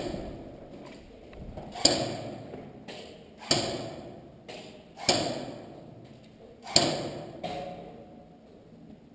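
Airsoft gunfire: single sharp shots about every one and a half to two seconds, five in all, each ringing on in the bare concrete corridors.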